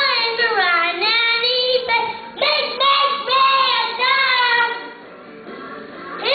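A young boy singing in short, sliding phrases, with a brief pause about five seconds in.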